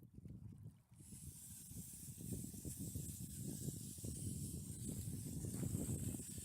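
Wind buffeting the microphone in uneven gusts, over a steady high hiss of shallow snowmelt runoff flowing over a rocky bed, which comes in about a second in.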